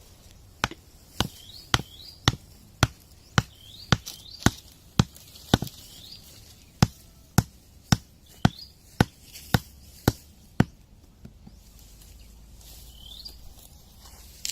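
Steady chopping, about two sharp strikes a second, with a short break midway; it stops about ten seconds in. Birds chirp a few times over it.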